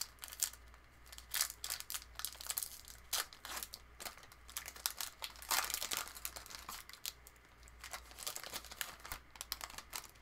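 Wrapper of a 2021 Series 1 baseball card hobby pack being torn open and crinkled by hand, with quick irregular crackles.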